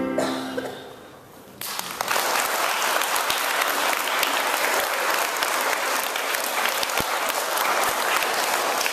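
The last steel pan notes ring and die away, then an audience breaks into steady applause about a second and a half in.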